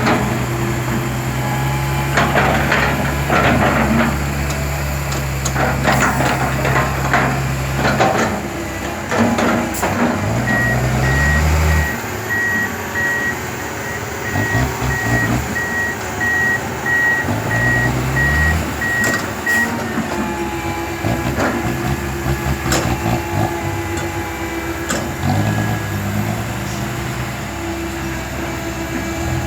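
Heavy diesel earthmoving machinery running with metallic clanks, its engine revving up twice. In the middle, a reversing alarm beeps in an even pulse for about nine seconds.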